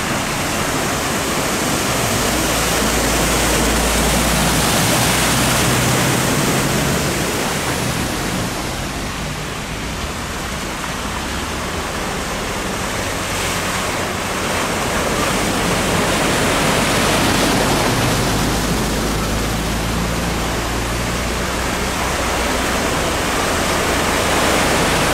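Floodwater splashing and churning as cars drive through a flooded street: a continuous rush of water that swells several times as cars push through it, loudest near the end.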